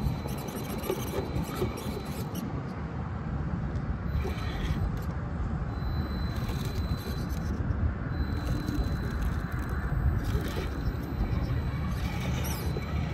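Brushed-motor SCX10 II RC rock crawler driving over rough ground: tyres scraping and grinding over terrain, with a faint high whine that comes and goes as the throttle is worked.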